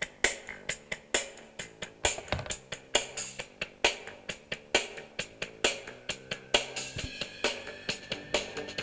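Demo-reel soundtrack music with a steady drum-kit beat, a strong hit about once a second with lighter hits between.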